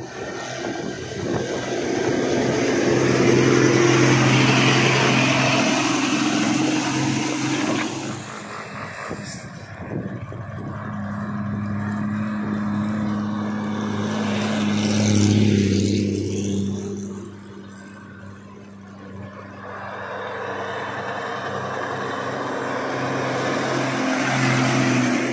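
Mitsubishi Fuso 190 PS diesel trucks loaded with sugarcane running under load and driving past. The engine drone is steady and deep and swells as each truck nears, with pass-bys about fifteen seconds in and near the end.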